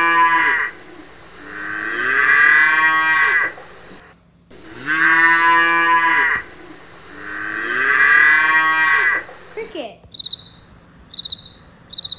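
Cow mooing: four long, drawn-out moos, the first already under way. About ten seconds in, a cricket starts chirping in short, high chirps repeated several times.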